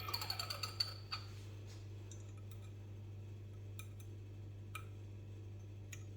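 Small sharp clicks from a burr grinder's grind-adjustment mechanism: a quick run of about ten in the first second, then single clicks roughly a second apart. A steady low hum runs underneath.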